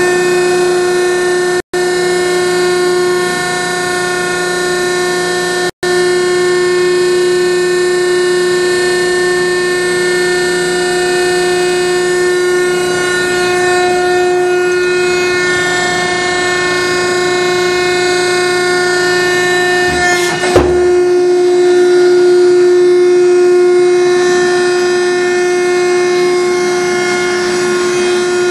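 Load King BV-6030M vertical baler's hydraulic power pack, a 10-horsepower three-phase electric motor driving the pump, running with a steady, loud whine as the baler cycles. A single sharp clunk comes about twenty seconds in.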